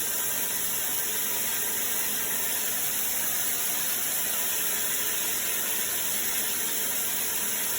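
Water spraying steadily from a Taiker dual shower head onto the shower, an even hiss.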